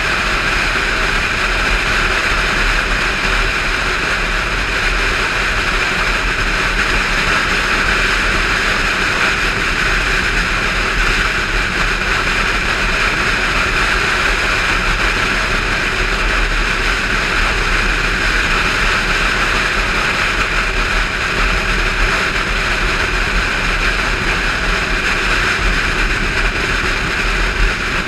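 Motorcycle cruising at road speed: a steady rush of wind over the on-bike camera's microphone mixed with the engine's even drone.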